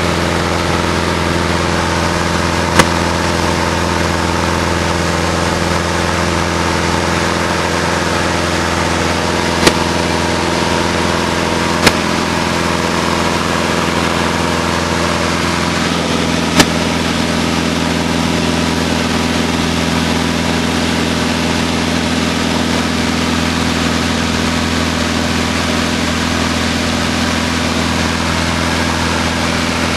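Steady drone of a Van's RV light aircraft's piston engine and propeller heard inside the cockpit in flight, with four sharp clicks spread through it. The engine note shifts slightly about sixteen seconds in.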